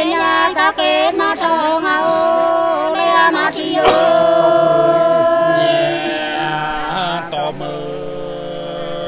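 Hát sli, the Nùng folk song of Lạng Sơn: voices singing long, drawn-out notes that bend and waver, with one note held steady for about two seconds near the middle.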